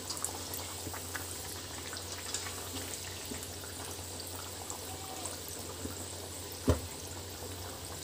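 Sabudana vadas deep-frying in hot oil in a kadhai: a steady bubbling sizzle with small crackles, the oil still bubbling hard in the early stage of frying before the vadas are turned. A single knock about two-thirds of the way through.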